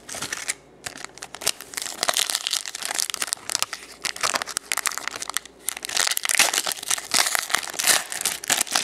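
A foil trading-card pack wrapper being torn open and crinkled by hand, a dense run of irregular crackles.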